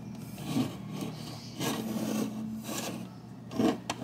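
An alarm clock being turned and slid on a wooden tabletop by hand, its case rubbing and scraping against the wood in uneven strokes, with a few light knocks near the end.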